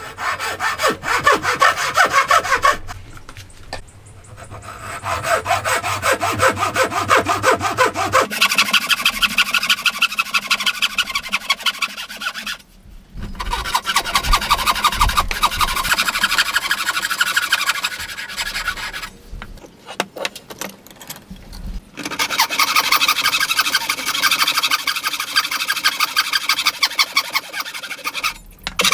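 Hand frame saw cutting through a clamped wooden block, a rasping saw sound in quick, even back-and-forth strokes. The sawing comes in several passages broken by short pauses.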